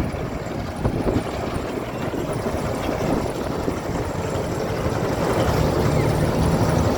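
John Deere rice harvester running: a steady low engine rumble with machinery noise over it, a little louder and heavier near the end.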